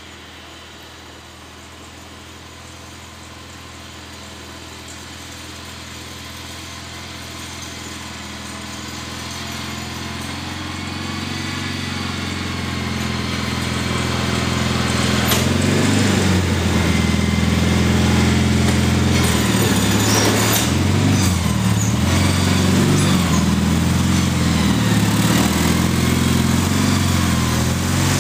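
Gravely tractor engine running as it plows snow, growing steadily louder as it comes closer over about fifteen seconds. Once it is close, its pitch wavers up and down.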